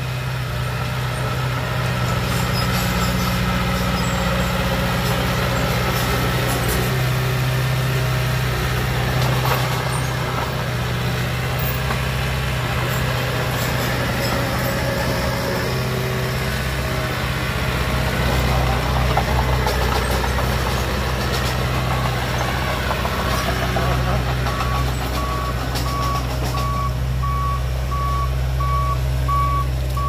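Small crawler bulldozer's diesel engine running steadily as it pushes dirt. From about two-thirds of the way in, a reversing alarm beeps at an even pace as a dump truck backs up.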